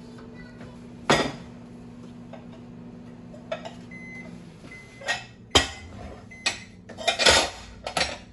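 Ceramic plates and bowls clinking and knocking against each other as they are lifted out of a dishwasher and set into a drawer. A string of separate sharp clatters, the first about a second in, coming closer together near the end.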